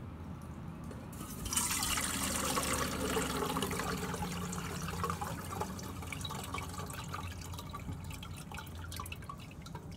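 Muddy clay-and-water slurry poured through a fine strainer into a stainless steel pot, running and trickling. The pour starts about a second and a half in and eases off near the end.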